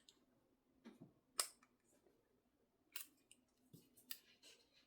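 A few sharp, faint metallic clicks, three of them plainly louder, spread among smaller ticks: Peerless 700C handcuffs being worked with a pick during a picking escape.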